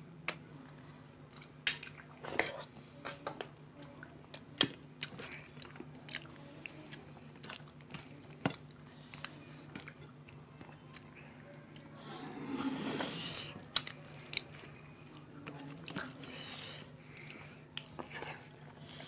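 Close-up mouth sounds of two people eating rice and fish curry with their hands: chewing and smacking, broken by scattered sharp clicks, with a louder stretch about twelve seconds in.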